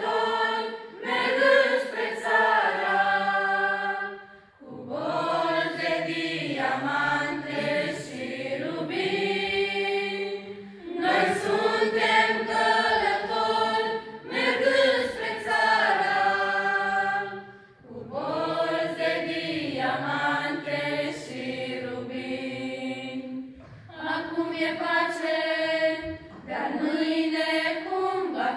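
A choir of mostly young women's voices singing a cappella, in long sustained phrases with short breaks between them.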